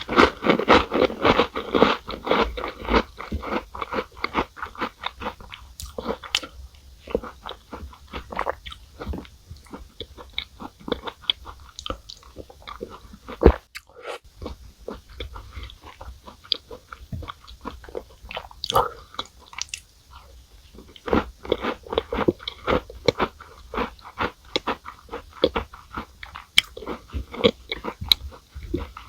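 Close-miked chewing of Chic Choc chocolate cookies in milk: crisp crunching bites, thickest in the first few seconds and again about three-quarters of the way through, with steady wet chewing between.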